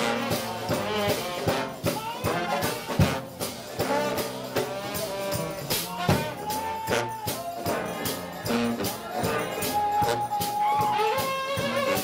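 United House of Prayer shout band playing: a trombone-led brass ensemble with sousaphone, sounding held and moving notes over a steady run of sharp percussive hits.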